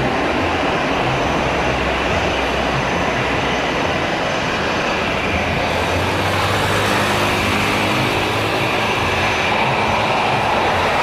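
Airbus A320-233's IAE V2500 turbofan engines running at taxi power: a steady jet whine over a low rumble, growing brighter about halfway through.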